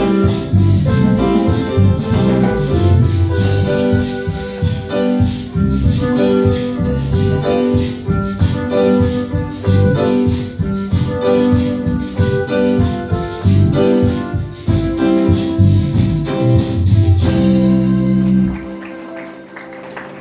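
Instrumental close of a Christian praise song: keyboard music over a steady, busy percussion beat, ending about eighteen seconds in on a held chord that fades away.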